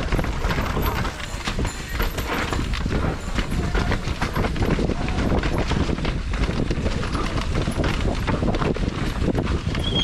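Downhill mountain bike rattling over rough trail, a dense irregular run of knocks and clatter, over a steady deep rumble of wind on the microphone.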